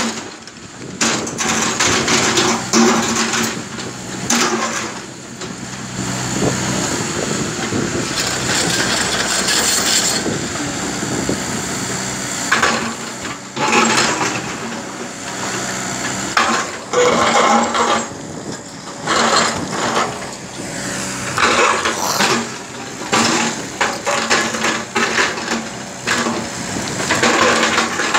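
Tracked JCB excavator working in broken quarry rock: its diesel engine runs steadily underneath while the steel bucket scrapes, grinds and crunches through stones, loud stretches coming every few seconds.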